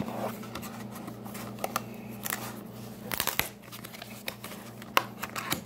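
A cardboard food box is handled and its end flap pulled open: scattered rustles, scrapes and clicks, busiest about three seconds in, with a sharp click near the end. A low steady hum runs underneath.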